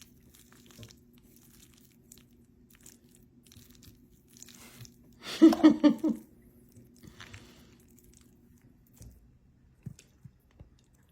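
Faint mouth sounds of someone chewing a forkful of baked chicken and spaghetti. About five seconds in there is a brief, loud, pulsing burst of voice. A faint steady hum lies underneath.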